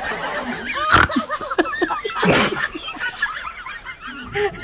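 People laughing, with a sudden sharp sound about a second in and a loud breathy outburst about halfway through.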